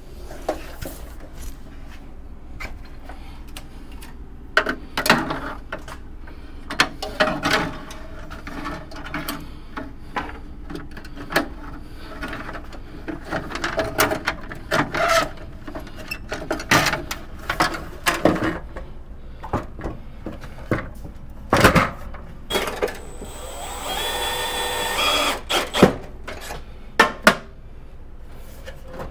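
Knocks and clatter of a Siemens 30-circuit panel's metal enclosure being handled and set against the wall. Near the end, a cordless drill-driver runs for about a second and a half.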